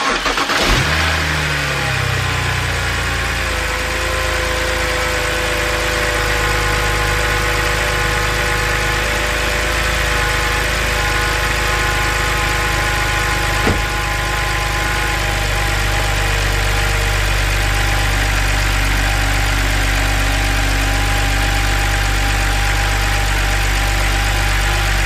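BMW N52 3.0-litre straight-six starting up. Its revs flare and fall away over the first few seconds, then it settles into a steady idle on its first run after an eccentric shaft sensor replacement and Valvetronic relearn, running fine. A single sharp click sounds about fourteen seconds in.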